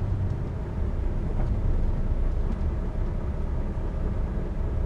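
A lorry's diesel engine idling: a steady low rumble.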